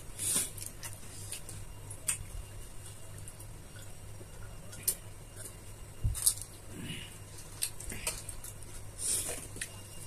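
Pani puri being eaten at a table: scattered light clinks and taps of steel bowls and drinking glasses, with soft crunching and squishing of the filled puri shells.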